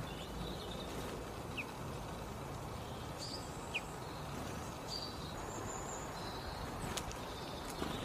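Outdoor garden ambience: a steady low background noise with scattered faint chirps and short calls of small songbirds, and a couple of sharp clicks near the end.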